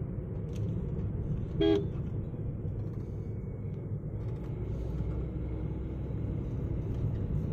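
Car driving with a steady low engine and road rumble, and one short horn toot about a second and a half in.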